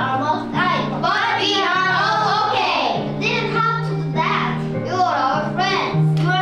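Children singing a song over instrumental accompaniment with a steady, stepping bass line.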